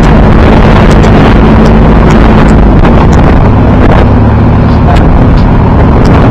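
Motorboat engine running steadily with heavy wind noise buffeting the microphone; the engine note shifts about halfway through.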